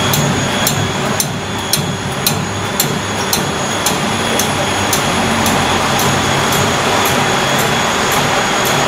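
Two-colour dog chew extrusion production line running: steady machine noise with a low hum and a high whine, and light ticks about two or three times a second.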